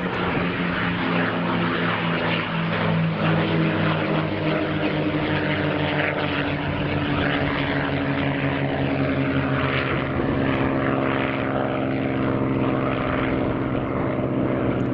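P-51D Mustangs' Packard Merlin V-12 engines running steadily in a flypast, the engine note falling slowly in pitch as they pass.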